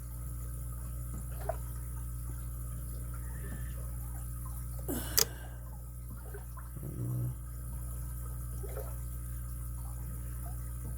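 Small metal padlock parts handled during disassembly, with faint scattered ticks and one sharp metallic click about five seconds in, over a steady low hum.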